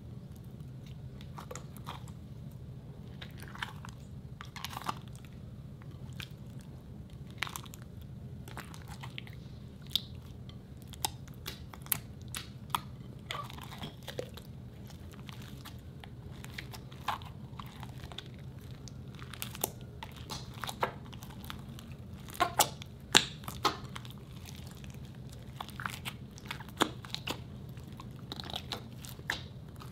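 Hands squishing and kneading a large mass of mixed slime in a glass bowl: irregular wet clicks and pops, over a steady low hum.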